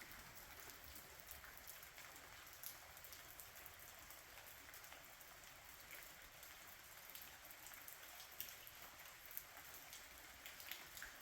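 Light rain falling, heard faintly as a soft hiss with scattered drop ticks.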